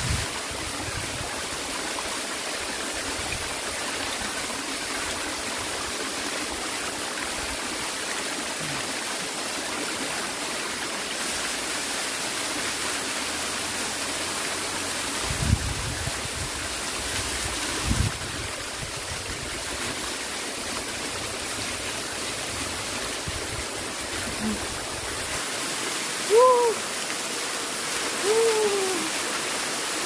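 A small waterfall pouring onto rock, a steady, even rush of water. Near the end there are two short pitched calls over it, and a couple of brief low thumps earlier on.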